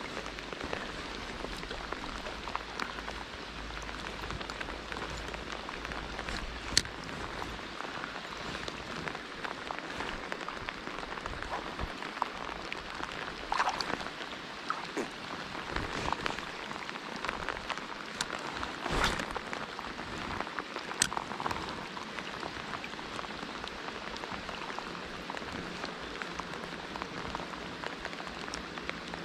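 Steady rain falling, a continuous hiss of drops with scattered sharper ticks and a few louder knocks close to the microphone.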